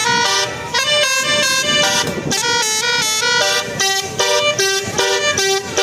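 Indonesian bus 'telolet' multi-tone air horn playing a fast tune, jumping from one pitched note to the next several times a second. A lower note near the end is held steady.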